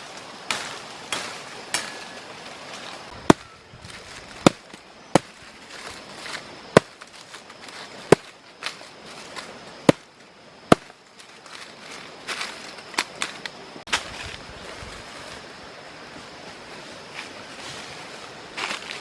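A series of sharp knocks or cracks, roughly one a second through the middle of the stretch, then a few smaller clicks, over a steady background hiss.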